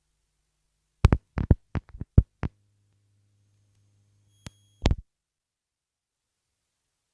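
A quick run of about eight sharp knocks over a second and a half, with a low steady hum behind them that stops with two clicks about five seconds in.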